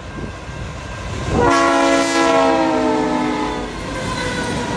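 Nathan K5HL five-chime air horn on a CN freight locomotive sounding one long blast of about two seconds, starting about a second and a half in, over the rumble of the train.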